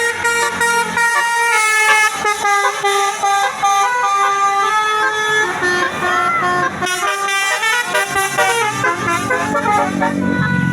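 A bus's basuri musical horn playing a melody, a quick run of steady notes that step from one pitch to the next.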